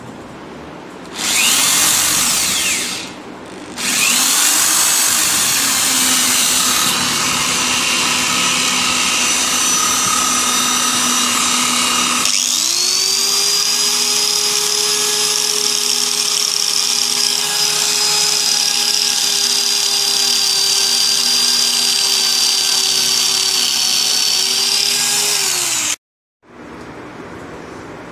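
Corded electric drill running: it starts about a second in, drops out briefly, then runs steadily. About halfway through, an electric angle grinder takes over with a steady high whine, cutting off suddenly near the end.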